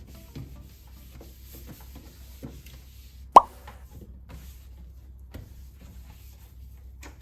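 A single short, rising "bloop" pop, like the pop sound effect laid over on-screen captions, about three and a half seconds in. Around it are faint small clicks and a low steady hum.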